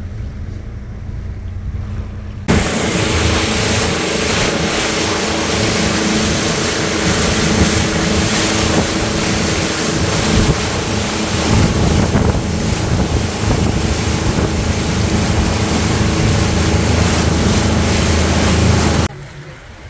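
Motorboat engine running at speed, with rushing water and wind buffeting the microphone. A quieter engine hum gives way abruptly to this much louder run about two and a half seconds in, and it cuts off just as abruptly shortly before the end.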